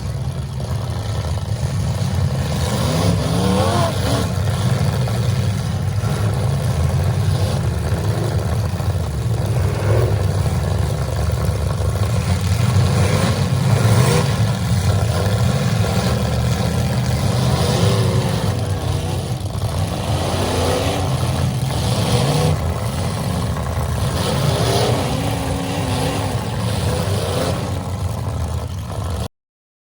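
Demolition derby cars' engines running loud and revving up and down, with occasional bangs from the cars. The sound cuts off suddenly near the end.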